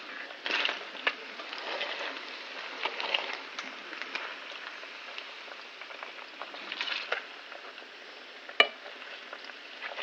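Chicken skin and pasta frying in hot oil in a pan: a steady sizzle with irregular crackling, and one sharp knock near the end.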